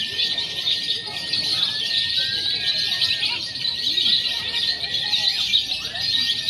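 Many caged lovebirds chattering and trilling together in a dense, continuous high-pitched chorus, with a thin steady whistle-like tone above it that dips in pitch now and then.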